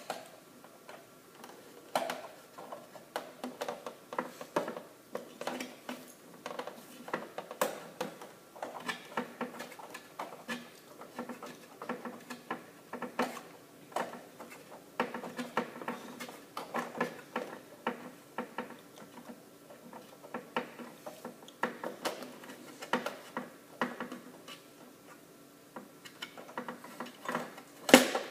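Plastic printer parts being handled and worked apart by hand: irregular clicks, knocks and scratching, several a second at times, with a louder pair of knocks near the end.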